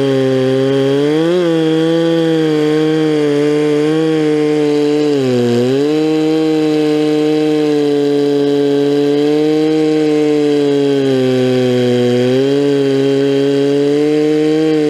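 Stihl 046 Magnum two-stroke chainsaw with a 24-inch bar and milling chain running flat out under load, ripping lengthwise through a log. The engine note holds steady, sagging briefly twice as the chain bogs in the cut.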